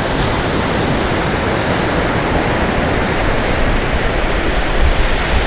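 Surf on an open ocean beach: a steady, even wash of breaking waves, with a low rumble of wind on the microphone.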